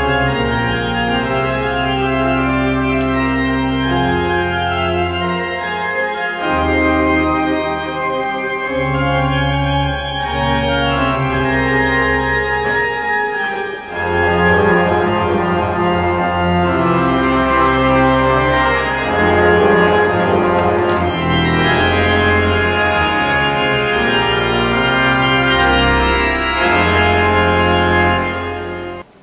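Pipe organ playing slow sustained chords over deep bass pedal notes, the harmony changing every second or two; it cuts off abruptly near the end.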